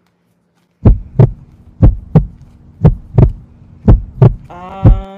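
Heartbeat sound, loud double thumps (lub-dub) about once a second, four pairs and a fifth beat near the end. A held humming tone comes in over the last half second.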